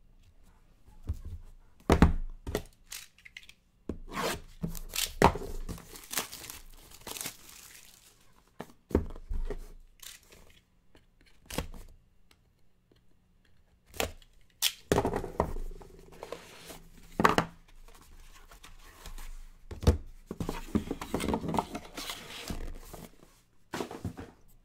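Plastic shrink wrap being torn and crinkled off a cardboard box of trading cards, in irregular bursts, with knocks and scrapes as the box is handled and opened.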